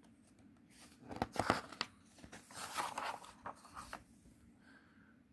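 A storybook page being turned by hand: paper rustling and crinkling in several short scrapes between about one and four seconds in.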